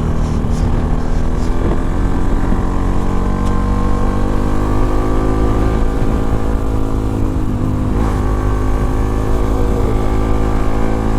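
Modified Bajaj Pulsar NS200's single-cylinder engine pulling hard under acceleration, its note climbing steadily for several seconds. There is a brief break in the note about eight seconds in, then the pitch drops near the end as the throttle eases off.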